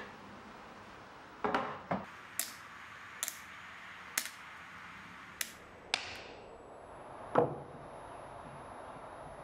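Screws dropping one by one into a steel parts tray: about seven sharp metallic clicks and clinks spread over a few seconds, several with a short bright ring. Near the end comes one louder, duller knock, a screwdriver set down on the wooden top.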